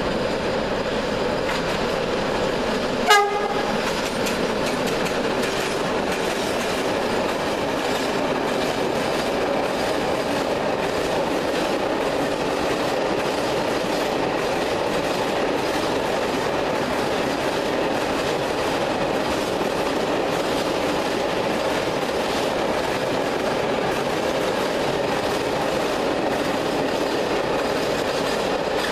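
A freight train of tank wagons rolls through at steady speed, with continuous rail noise and the clickety-clack of the wagon wheels. One short train-horn blast sounds about three seconds in.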